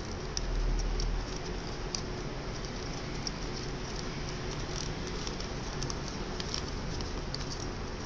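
Origami paper crinkling and rustling as it is folded and creased by hand: scattered small, crisp clicks at irregular intervals over a steady hiss.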